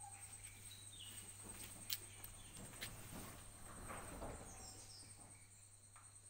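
Faint outdoor ambience: a steady high-pitched insect drone with a few short bird chirps. Two sharp clicks come about two and three seconds in, with rustling between about the third and fifth second.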